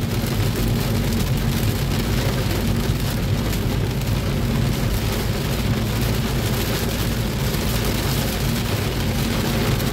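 Heavy rain on a car's windscreen and roof, with steady road and engine rumble, heard from inside the moving car.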